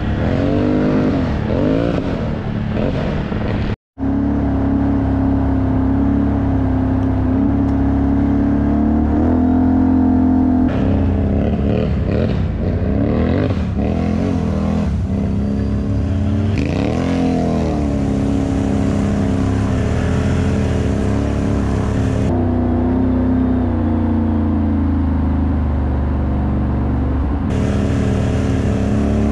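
Can-Am Renegade 1000 ATV's V-twin engine through an SLG Welding aftermarket exhaust, deep and loud, revving up and down under throttle. Several abrupt cuts between takes, with a brief dropout about four seconds in.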